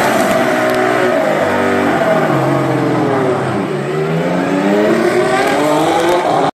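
Sauber Formula One car's turbocharged V6 engine running in the pit lane. Its note holds, sags, then climbs steadily as the car pulls away from the pit box, and it cuts off suddenly near the end.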